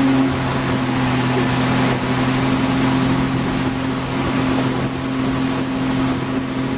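Engine of a boat towing inflatable tubes, running at steady speed with an even drone, over the rush of wind and water from the wake.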